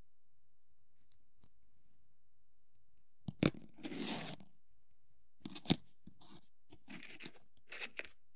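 Hand work on small plastic model parts: a few sharp clicks, about three and a half and five and a half seconds in, with short scraping sounds after each.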